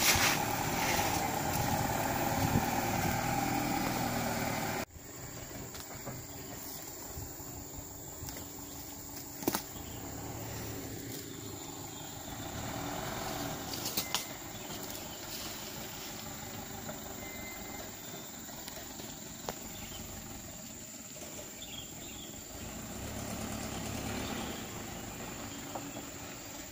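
A truck engine running close by, which cuts off abruptly about five seconds in. Quieter outdoor background follows, with a few faint clicks.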